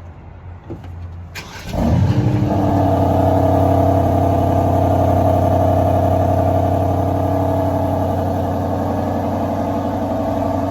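Aston Martin DBX's Mercedes-AMG 4.0-litre twin-turbo V8, on its stock exhaust, starts up about two seconds in. It flares briefly and then settles into a steady idle.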